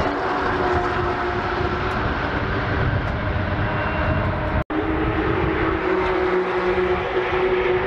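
A steady engine drone with several held tones. It cuts out for a split second about two-thirds of the way through, then carries on at a slightly different pitch.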